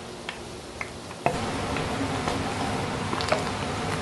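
Shrimp and fish balls deep-frying in hot oil: a steady sizzle with scattered crackling pops. About a second in there is a sharp click, and the sizzle turns louder from then on.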